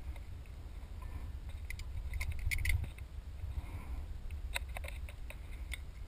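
Light metallic clicks and clinks of a Suzuki Burgman 400's rear brake caliper and pads being handled as the caliper comes off the disc. The clicks come in a cluster about two to three seconds in and again near the end, over a low rumble.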